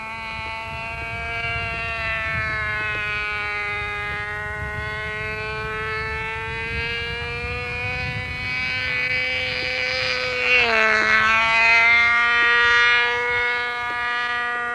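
Radio-controlled model airplane in flight, its motor and propeller making a steady buzzing tone that wavers in pitch. About ten seconds in it grows louder and its pitch drops sharply as the plane passes.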